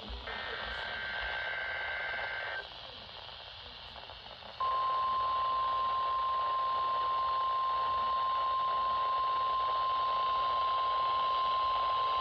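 NOAA Weather Radio test sequence over receiver hiss: a buzzy two-tone SAME digital header burst ends about two and a half seconds in. About two seconds later the steady 1050 Hz weather radio warning alarm tone starts, the loudest sound here, and holds to the end.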